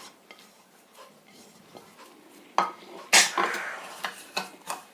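A spoon knocking and clinking against a cooking pot as spice powder is tipped in: a few faint clicks, then a loud clink a little past halfway, followed by several lighter taps.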